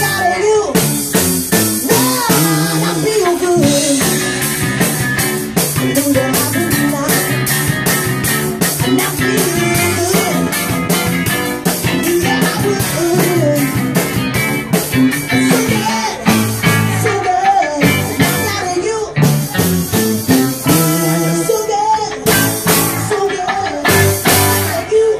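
Live band playing a song: electric bass, keyboards and a steady drum beat, with a sung melody over them.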